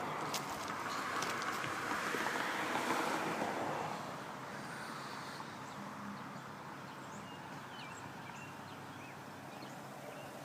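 Steady outdoor rushing noise, louder for the first four seconds and then easing off, with a few faint bird chirps in the later part.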